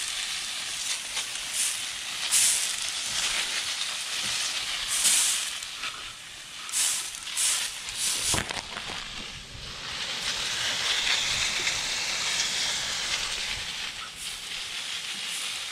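Fine water spray hissing steadily onto green bean plants, with a few brief louder spatters in the first half.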